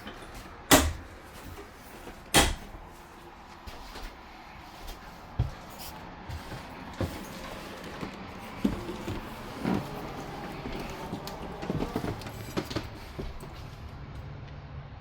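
Cupboard doors opening and closing: two sharp bangs, about a second and two and a half seconds in, then a run of lighter knocks and clicks.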